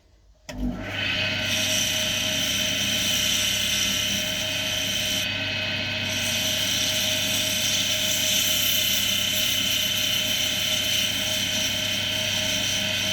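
Axminster AC240WL woodturning lathe switched on about half a second in, its motor coming up to speed and then running steadily with a high whine and hiss.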